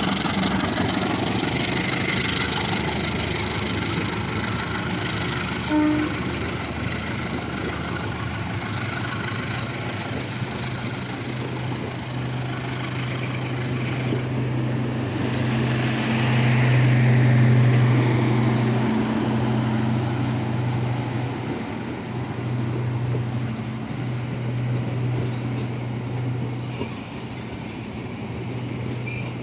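Passenger train hauled by a CC 201 diesel-electric locomotive rolling past: the coaches' wheels running on the rails with a steady low drone that swells to its loudest about halfway through, then eases off.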